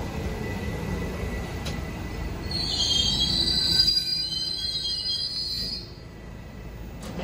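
New York City subway train slowing into a station, with a low rumble and a high squeal that starts about a third of the way in and stops about two seconds before the end as the train comes to a halt.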